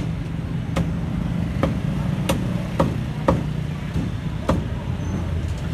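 Cleaver chopping roast duck on a thick wooden chopping block: about six sharp chops at uneven intervals. Under them is a steady low hum of street traffic.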